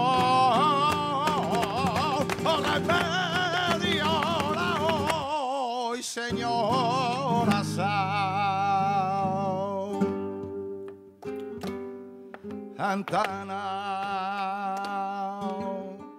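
Flamenco soleá: a singer's melismatic, wavering cante over guitar. Sharp percussive strikes are scattered through it, and the singing pauses briefly about five seconds in.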